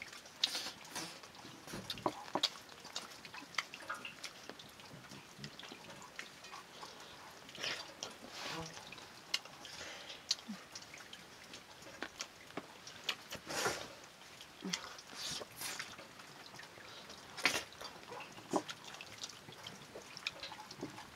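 Someone eating with their fingers from a metal plate: irregular wet chewing and smacking noises with small scattered clicks.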